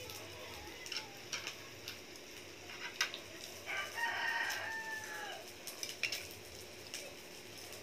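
A rooster crowing once, one pitched call of about a second and a half that drops in pitch at the end. Light clicks of chopsticks and tongs against plates come and go around it.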